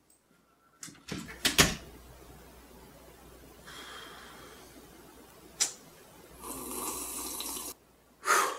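A door slams shut with a rattling knock about a second in. Later there is a single sharp click, then a rough rushing sound lasting about a second and a half, and a short loud sound near the end.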